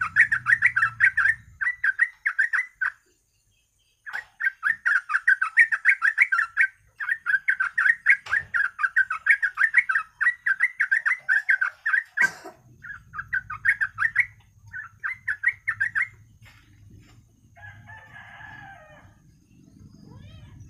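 Yellow-vented bulbul (trucuk) singing: long runs of rapid, chattering phrases, repeated over and over, broken by a short silence about three seconds in. A sharp click about twelve seconds in; the song stops around sixteen seconds in.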